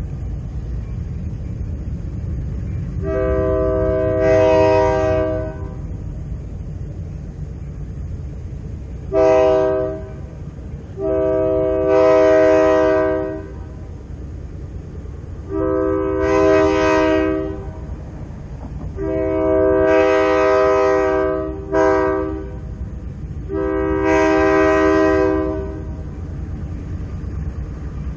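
Air horn of a Florida Central GP15 diesel locomotive on an approaching train, a multi-note chord sounded in about seven blasts, mostly long with two short ones, over a steady low rumble. It is the warning pattern blown for a grade crossing.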